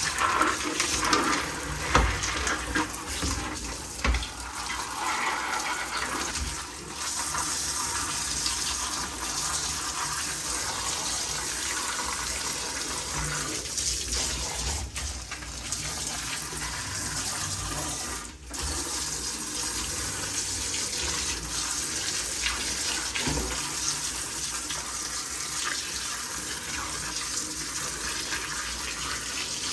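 Water running steadily, as from a tap or spray, during a keyboard clean, with a few sharp knocks in the first seconds.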